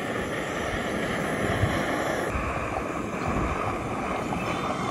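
Jetboil canister stove's gas burner running with a steady roaring hiss as the water heats to a boil. Its tone shifts slightly about two seconds in.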